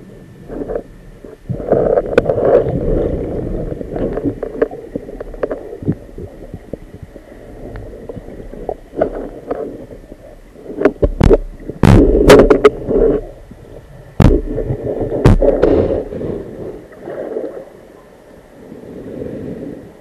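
Muffled underwater noise picked up through a camera housing mounted on a speargun: swelling rumbles of water moving past as the diver swims, with several sharp knocks in the middle, the loudest about twelve seconds in.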